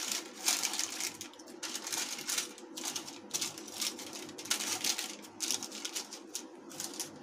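Greased butter paper rustling and crinkling as it is pressed and folded into the corners of an aluminium tin, in irregular crackles.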